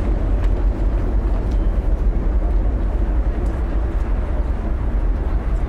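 Outdoor city street ambience: a steady low rumble of distant traffic and city noise, with a few faint ticks over it.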